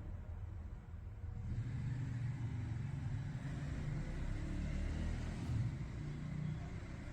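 Dreame H12 Pro wet-dry vacuum working while it prepares ultra mode: a steady low rumble, joined about a second and a half in by a faint hiss.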